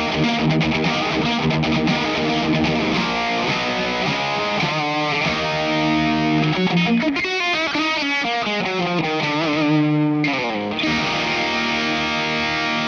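Schecter USA Masterworks custom electric guitar played through distortion, a lead line with many pitch bends and slides.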